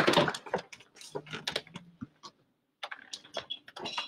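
Irregular light clicks and knocks of people moving about: footsteps and shuffling, with a short gap of silence about halfway through.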